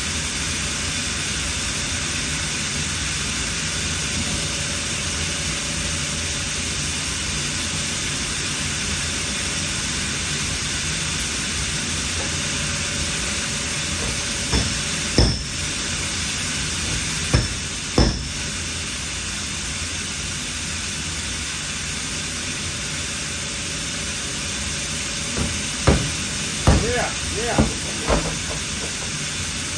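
A steady hiss throughout, with a couple of sharp knocks about halfway through and a cluster of short knocks and brief squeaks near the end.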